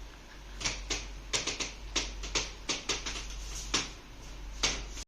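A quick run of about a dozen sharp clicks at uneven intervals, spread over about four seconds.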